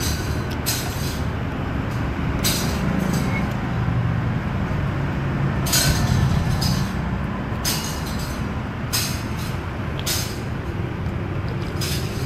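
Eating noodle soup with chopsticks: short sharp noises from chopsticks, bowl and mouth every second or so, over a steady low rumble of background noise.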